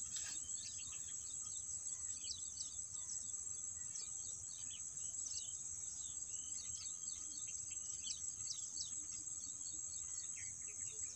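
Steady high-pitched drone of insects, with many short bird chirps scattered through it.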